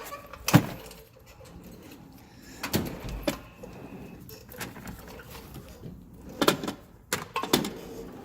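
A handful of sharp clunks and knocks of tools and a kit case being handled and packed into a toolbox drawer, the loudest about half a second in.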